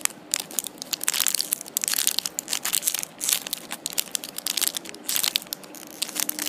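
Clear plastic packaging crinkling and crackling irregularly as fingers press and turn a wrapped squishy.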